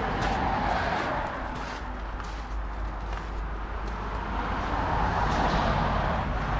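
Road traffic noise from cars passing on a nearby road, swelling as a car goes by about half a second in and again around five seconds in. Faint footsteps on gravel sound about every half second.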